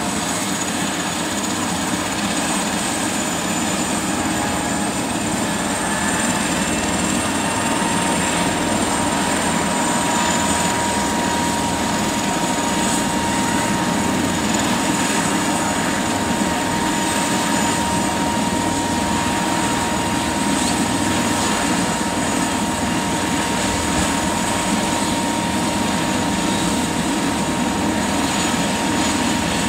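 Rescue helicopter's turbine engines and rotor running steadily, with a high whine over the rotor noise. A further steady whine joins about seven seconds in, and the sound grows slightly louder around then.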